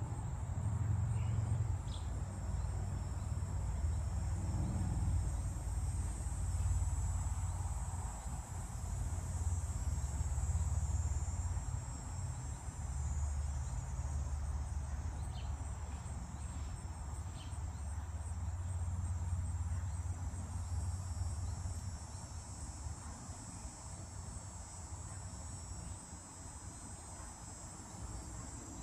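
Insects trilling in a steady, high-pitched chorus over a constant low rumble, with a few brief chirps near the start and again about halfway through.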